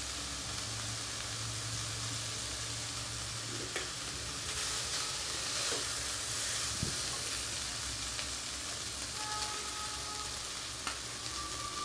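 Rice and chopped carrots and beans sizzling in oil in a nonstick wok over a high flame, with a wooden spatula stirring and a few light taps against the pan as the rice is added.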